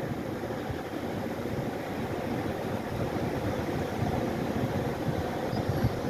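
Steady low rumbling noise of wind buffeting the microphone over distant surf on an open beach, with no distinct gull calls.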